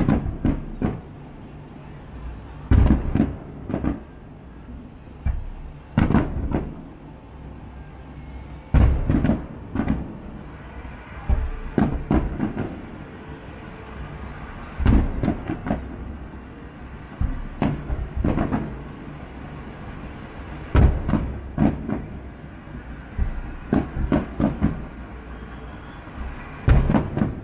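Fireworks display: irregular booms and cracks every second or two, each followed by a rolling echo, over a low steady city hum.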